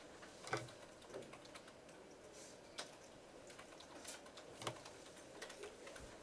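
Faint, irregular clicking of computer keys being typed on.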